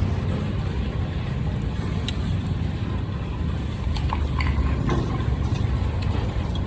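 Steady low rumble with a few faint, light clicks scattered through it.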